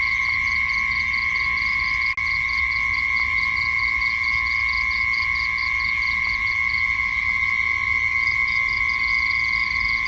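Night insect chorus: a steady, unbroken high drone with a rhythmic chirping on top at about four chirps a second. The chirping pauses for a second or two past the middle, and the sound cuts out for an instant about two seconds in.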